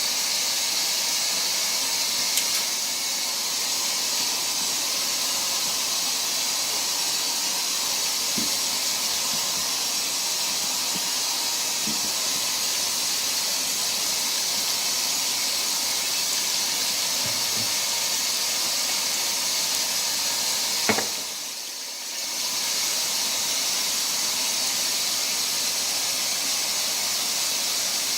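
Steady hissing rush of running water, with a sharp click about 21 seconds in followed by a brief dip before the hiss resumes.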